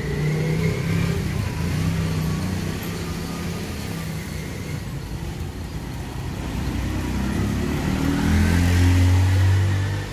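Road traffic: motor vehicle engines running and passing by. One engine grows loudest near the end and then drops away suddenly.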